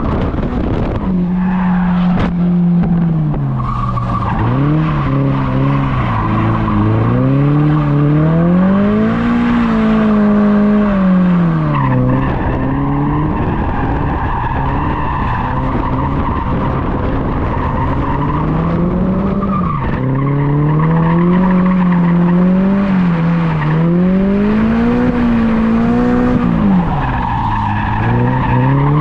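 Toyota GR86's 2.4-litre flat-four engine revving up and down in waves of a few seconds under throttle, with the tyres squealing in a sustained slide, heard from inside the cabin.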